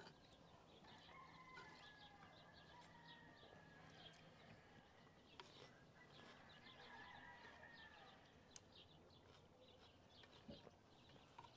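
Near silence: faint outdoor ambience with small birds chirping, and a couple of faint clicks of spoons against clay bowls.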